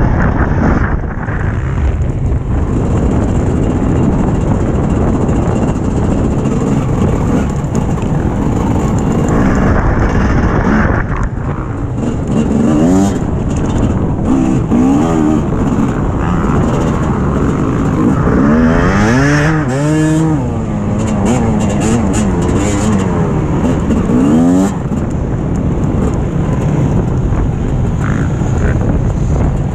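TM 250 dirt bike engine running hard on a motocross lap, heard from on the bike. In the second half the revs rise and fall again and again through the turns.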